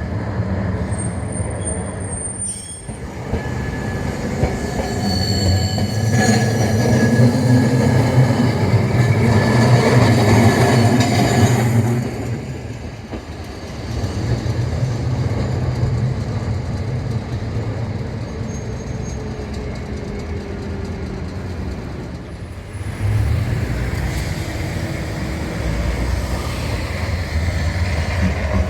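Streetcar running on its rails with a low rumble, its wheels squealing in thin high tones. It swells to its loudest in the first half, drops away, then rises again near the end.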